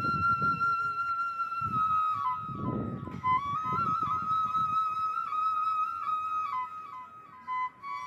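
Background music: a flute playing one long held note, then a melody moving up and down in short steps. A low rumble comes and goes under the music twice, near the start and about three seconds in.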